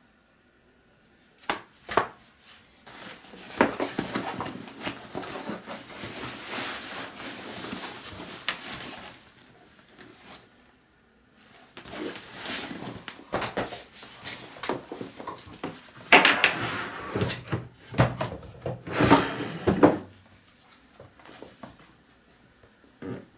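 Vanguard Up-Rise 28 bag being handled and unpacked: fabric rustling and scraping in several bouts, with scattered clicks and knocks and short pauses between.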